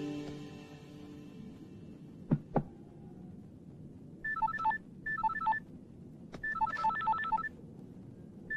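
Mobile phone ringing with an electronic beeping ringtone melody, in three bursts starting about four seconds in, the third the longest. Two sharp knocks come about two and a half seconds in, and background music fades out at the start.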